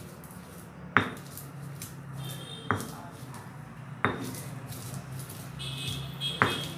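Stone pestle pounding roasted peanuts in a stone mortar: four sharp, irregularly spaced strikes, crushing the nuts coarsely, over a steady low hum.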